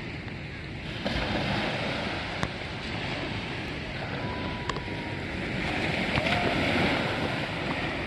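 Sea surf breaking and washing up a sandy beach. The wash is steady, swelling about a second in and again near the end.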